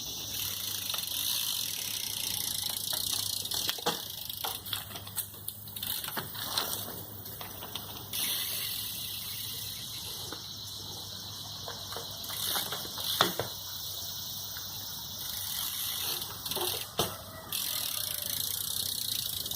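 BMX bike riding on pavement, with tyre and drivetrain hiss, several short knocks and rattles, and one sharp loud impact about 13 seconds in.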